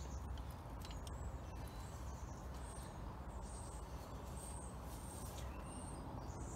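Small birds chirping now and then over a low steady background rumble, with a few faint clicks from a wrench being worked on a gear puller on a compressor pulley.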